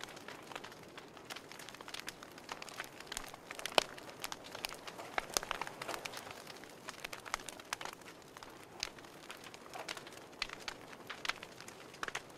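Wood fire crackling in a wood stove: irregular snaps and pops over a soft hiss, one louder pop a little under four seconds in.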